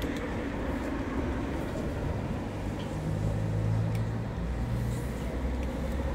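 A road vehicle's engine running with a steady low hum, strongest between about three and five seconds in, with a few faint clicks of a cat crunching dry kibble.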